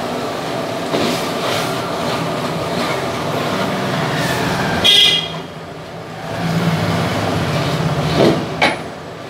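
A steady roar with a low engine hum, and a short horn toot about five seconds in, as of traffic passing a roadside stall. A long metal ladle stirs soya chunks in masala in a large aluminium pot, with two clinks near the end.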